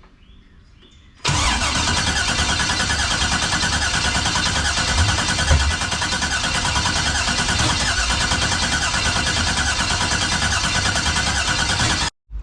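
The 1989 box Chevy's new starter cranking the engine over steadily for about eleven seconds without it catching: a no-start, with the engine turning but not firing. The cranking begins about a second in and cuts off suddenly near the end.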